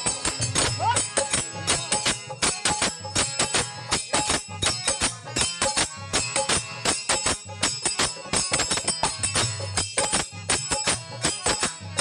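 Devotional folk music: fast, steady jingling hand percussion over a harmonium.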